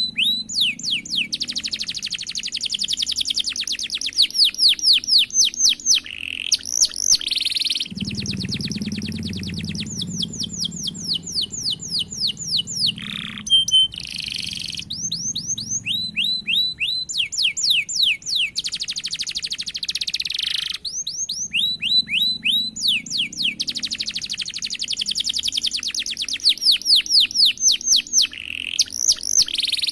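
Domestic canary singing a long, continuous song of rolls: very fast repeated high notes run together into trills, phrase after phrase with brief breaks between them.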